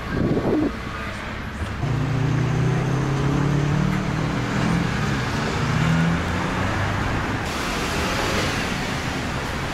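Road traffic on a street: a motor vehicle's engine hums from about two seconds in, then gives way to a steady, wider rush of passing traffic near the end.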